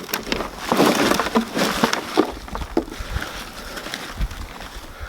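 Dry soil and compost being dug and rummaged through by hand in a potato container, a crackly rustling and scraping, busiest in the first two seconds.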